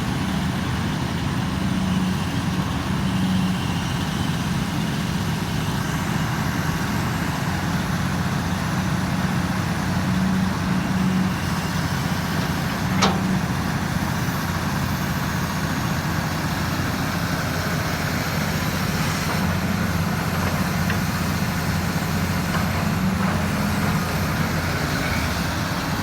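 Excavator's diesel engine running steadily, with one sharp click about halfway through.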